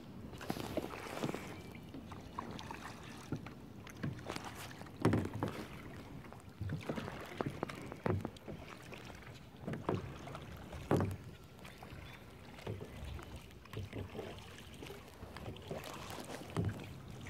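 Kayak paddles dipping and splashing in calm river water, irregular strokes every second or two over a steady trickle of water.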